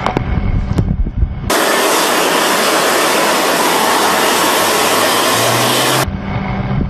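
A jet engine running, heard close to its exhaust nozzle: a loud, steady rushing hiss that cuts in suddenly about a second and a half in and cuts off abruptly about six seconds in. Before and after it there is a lower rumble inside a fighter cockpit with a few clicks.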